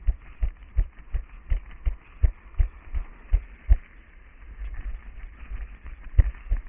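A runner's footfalls on asphalt, heard from a head-mounted camera as dull thuds at about three steps a second over a light rushing noise. The steps go softer for a second or two past the middle, then come back strongly near the end.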